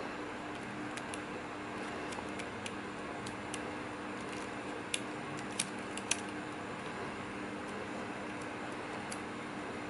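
Small plastic and metal parts of a compact camera clicking and ticking as its lens assembly is worked into the front case, with three sharper clicks in the middle, over a steady low hum.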